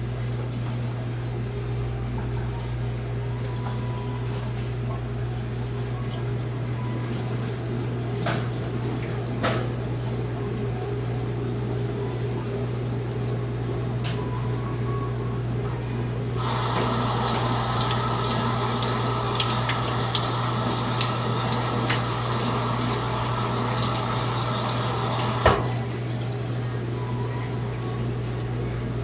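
A steady low hum with a few light clicks, then a water tap runs for about nine seconds, starting a little past the middle and stopping with a knock.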